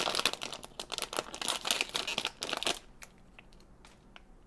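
Foil blind bag crinkling as it is torn open by hand: a dense run of sharp crackles that stops about three seconds in, leaving only a few faint rustles.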